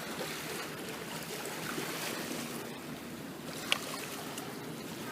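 Water washing against shoreline rocks: a steady, even hiss with a single short click a little past halfway.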